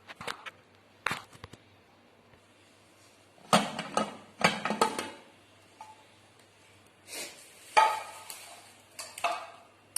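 Metal clanking and scraping of a pressure cooker lid being opened and the pot handled: a few light clicks at first, then several bursts of sharp metal-on-metal knocks with brief ringing.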